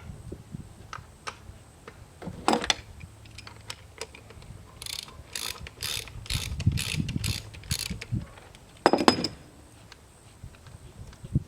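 Ratchet wrench clicking in a run of about seven strokes at roughly two a second, undoing the bolts to take the starter off a Mercury outboard. There is a sharp metal knock before it and a louder clatter near the end.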